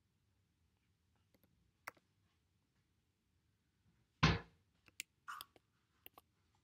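Scattered short clicks of a computer keyboard and mouse as a web form is filled in, with one louder dull thump about four seconds in.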